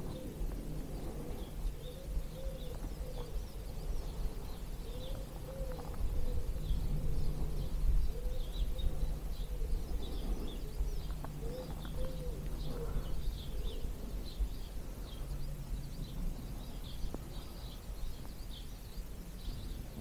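Dawn chorus: a pigeon cooing in short repeated phrases while small songbirds chirp and sing high above it. A low rumble of wind on the microphone runs underneath and swells for a few seconds in the middle.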